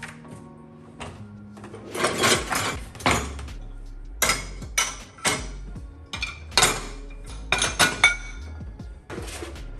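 Dishes clattering and clinking as a dishwasher is loaded: plates, a pan, a plastic chopping board and glasses knocked into the wire racks. The clinks come in a string of separate strikes, some with a short ringing tone.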